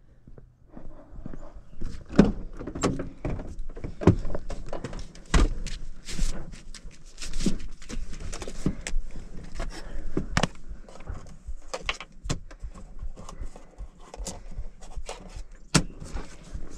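Irregular knocks, clicks and rustling as things are handled and moved around inside a work van's cab.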